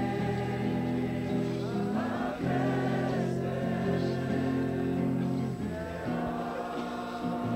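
A group of voices singing a slow song together in chorus, on long held notes that shift to a new chord about every three seconds.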